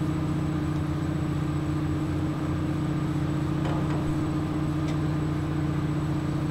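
Steady low drone of an idling engine, an even hum with no change in pitch, with a couple of faint clicks about halfway through.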